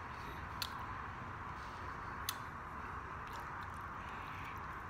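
Steady background hiss with two sharp clicks, about half a second and two seconds in.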